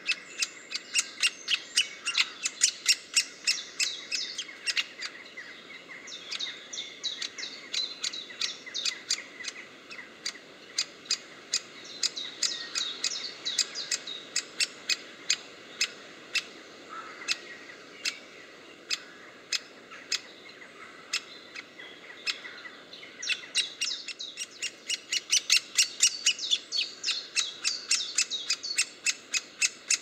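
Great spotted woodpecker nestling calling from its nest hole: a steady run of sharp, clicky calls about four a second with a twittering chatter between them. This is the begging of a young woodpecker to be fed. The calling is loudest and busiest at the start and again in the last few seconds, sparser in between.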